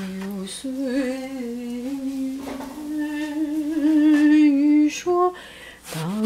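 A woman humming a slow tune in long held notes, with a wavering pitch on the loudest notes in the middle. A few knocks of a cleaver on a plastic cutting board come near the end.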